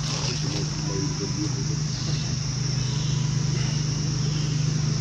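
A steady low motor-like hum, with a faint, high, even insect drone above it. Faint voices can be heard in the first second or so.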